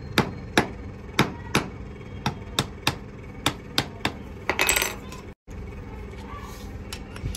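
Hammer striking the handle of a screwdriver whose tip is held on a small steel cup, punching a hole through the metal: about ten sharp knocks over four seconds. A brief metallic clatter follows about four and a half seconds in.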